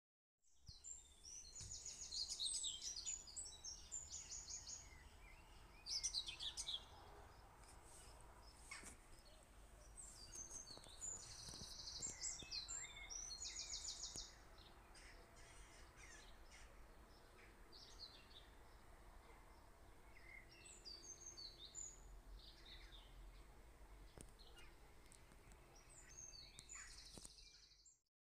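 Birds chirping and trilling in repeated bursts, faint, over a low steady hum, with a few soft clicks.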